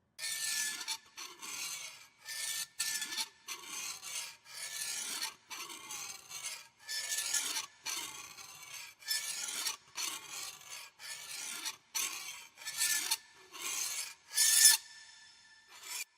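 Rasping, scraping strokes repeated over and over, a little more than one a second, each about half a second long with short gaps between them. The loudest stroke comes near the end, followed by one short last stroke.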